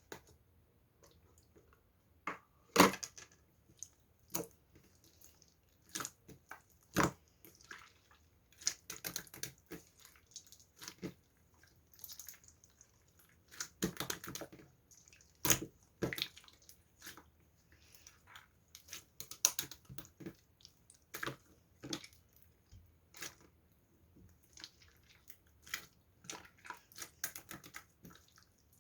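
Irregular close-up clicks, taps and crackly, wet-sounding handling noises. The loudest single click comes about three seconds in.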